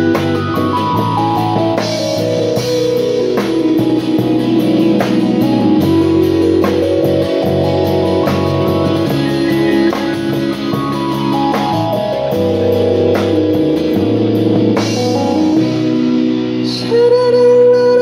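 Live band playing an instrumental passage of a pop-rock song on acoustic and electric guitars, keyboard and drum kit, with steady cymbal ticks and falling runs of notes. A held, wavering sung note comes in near the end.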